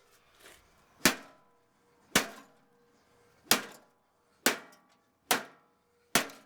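A golf club whacking the thin sheet-metal casing of a Black & Decker BMO700 microwave: six hard hits, roughly one a second, each followed by a short metallic ring as the casing crumples in.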